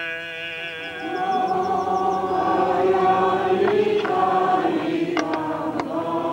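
Ukrainian Eastern-rite liturgical chant: a held note gives way, about a second in, to a group of voices singing together. Two short sharp clicks come a little after five seconds in.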